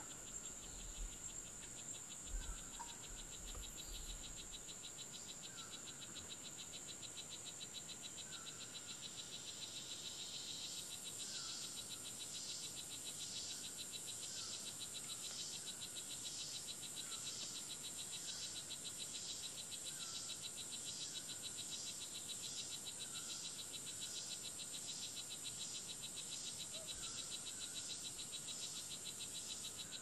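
Rainforest insect chorus: a steady high buzz, joined about ten seconds in by a louder trill that pulses about once a second. A short call repeats every second or two beneath it.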